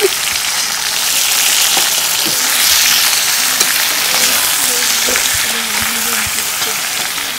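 Raw duck pieces sizzling steadily in hot oil in a metal karahi, with a metal spatula scraping and turning them against the pan now and then.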